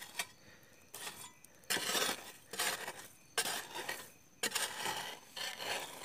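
Metal hoe blade scraping and digging through ash, charcoal and sandy earth in a burnt-out fire pit, in about six or seven separate strokes roughly a second apart, each starting sharply.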